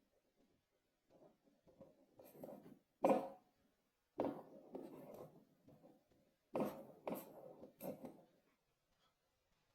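Kinetic sand being handled: soft crumbling and squishing, then five sharper, crackly impacts of clumps landing or being pressed, the loudest about three seconds in and a quick run of three between six and a half and eight seconds.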